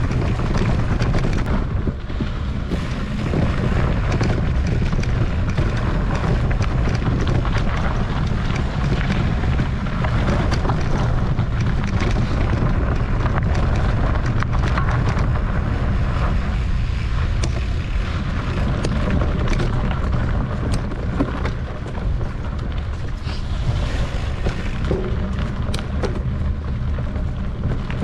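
Heavy wind buffeting on the microphone during a fast mountain bike descent on a rough trail, with scattered clicks and rattles from the bike over the ground.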